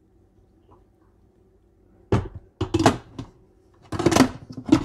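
Lid of a Fissler multi pot electric pressure cooker being set on the pot and fitted into place: a few sharp clunks and knocks from about two seconds in, with more near the end.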